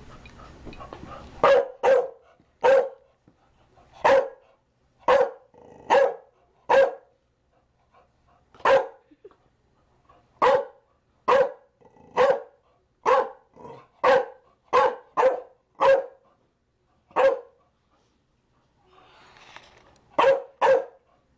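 A Chow Chow barking in single barks, about nineteen of them at roughly one a second, with a pause of a couple of seconds before two more near the end.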